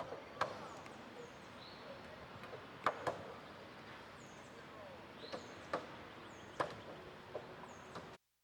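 Scattered sharp knocks and bangs of roofers at work on a roof, irregular, with two close together about three seconds in. Small birds chirp over a low outdoor background.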